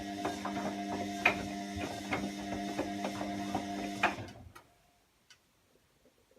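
Hotpoint WMBF742 washing machine running with a steady motor hum and irregular sharp clicking, a few clicks a second: the strange clicky noise of this machine. About four seconds in it stops with a louder click and dies away to near silence, with one faint click after.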